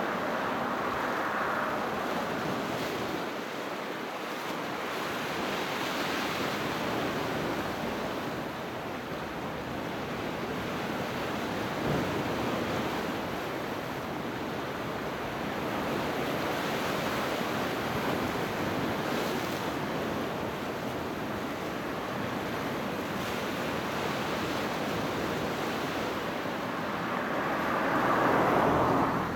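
Sea waves breaking and washing in, a steady rush of surf that rises and falls slowly, with a louder wave swelling up near the end.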